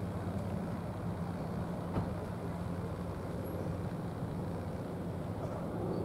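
Steady low drone of distant engines, like passing vehicles, with a single short click about two seconds in.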